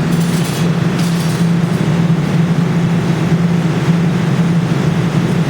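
Steady low machine hum with a continuous rumbling noise over it, from a crane claw machine.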